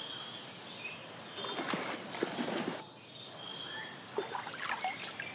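Otters splashing through a shallow pool as they grab thrown fish, in two noisy stretches. Short high chirps come and go over it.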